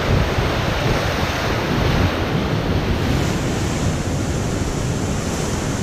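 Ocean surf rushing steadily, with gusty wind buffeting the microphone in a low, uneven rumble.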